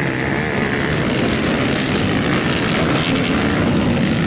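Several motocross bikes racing past on the track, the engine pitch rising and falling as they accelerate.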